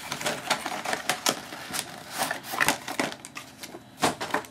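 Irregular clicks, taps and crinkles of hands handling a trading-card box and its packaging.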